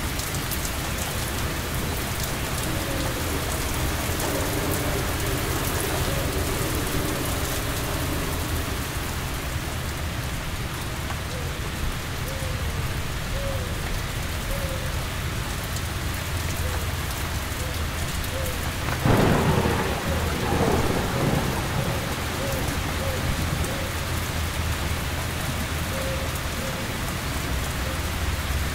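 Steady heavy rain falling, with a sudden thunderclap about two-thirds of the way through and its rumble rolling on for a few seconds.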